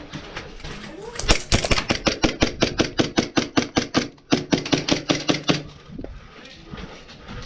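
Airsoft pistol fired in a rapid string of sharp shots, about six a second for some four seconds, with a brief pause a little after the middle.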